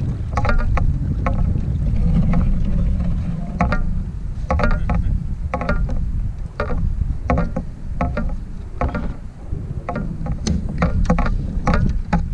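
A pedal-driven fishing kayak under way, with water moving along its hull and a constant low rumble of wind on the microphone. Frequent short, sharp sounds come at irregular intervals throughout.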